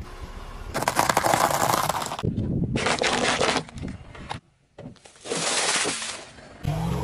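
Crunching and crackling as a car tyre rolls over and crushes small objects on asphalt, heard as three separate bursts.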